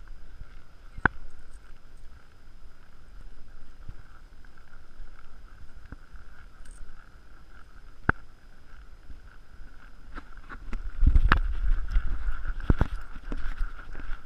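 Horse walking on a sandy trail, soft hoof thuds under a steady low rumble, with a couple of sharp clicks. About eleven seconds in the hoof thuds grow louder and come more often.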